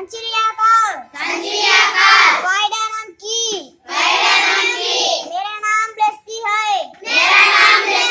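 A group of young children singing together, their voices loud and close, with short breaks between phrases.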